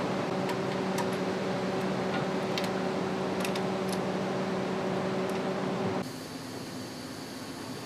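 Steady hum and hiss of an assembly hall's ventilation and machinery, with a few light clicks in the first four seconds. About six seconds in it drops abruptly to a quieter, thinner hiss.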